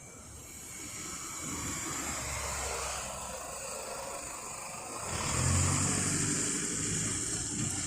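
A motor vehicle driving past, its engine and road noise growing louder and loudest a little past halfway.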